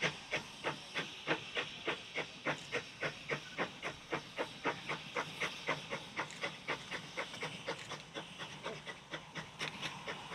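Exhaust beats of a small steam saddle-tank shunting locomotive, Lancashire & Yorkshire Railway Pug 19, working a rake of wagons: an even run of sharp chuffs about four a second over a steady steam hiss, the beats growing softer in the last few seconds.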